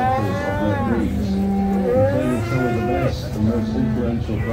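Cattle mooing: several long calls one after another and overlapping, some arching up and falling away in pitch, over a low continuous lowing.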